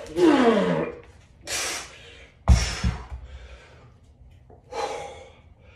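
A man's strained grunt, falling in pitch, and a sharp hissing exhale under the effort of heavy 106-pound kettlebell cleans. A heavy double thud about two and a half seconds in as the kettlebell comes down on the rubber gym floor, then another grunt near the end.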